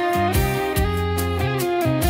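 Background music: a song with a steady drum beat, a low bass line and a melody that slides between notes.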